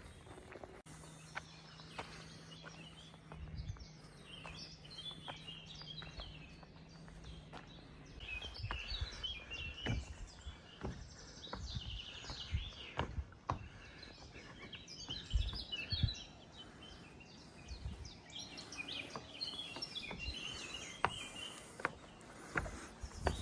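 Small birds chirping and singing repeatedly, with the scattered thuds and scrapes of a hiker's footsteps on a rocky mountain trail.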